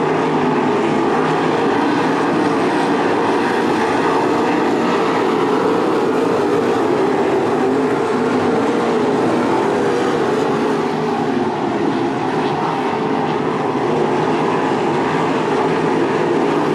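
A field of winged 305 sprint cars racing on a dirt oval, their 305-cubic-inch V8 engines blending into a loud, steady drone.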